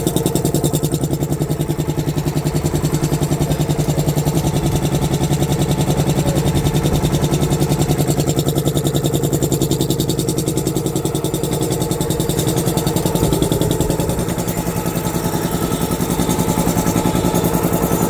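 Air compressor running steadily with a fast, even pulsing beat, easing slightly about 14 seconds in.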